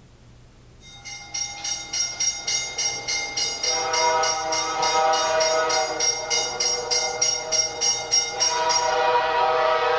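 Recording of a train horn played loud through studio speakers: a fast, regular high ringing of about three to four strokes a second starts about a second in, and about four seconds in a held multi-note train horn chord comes in over it; the ringing stops near the end while the horn sounds on.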